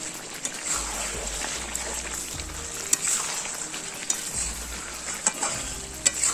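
Chicken pieces frying in spiced oil in a pot, a steady sizzle, with a spoon stirring and clicking against the pot now and then. The oil has separated from the masala, the sign that the slow-frying is nearly done.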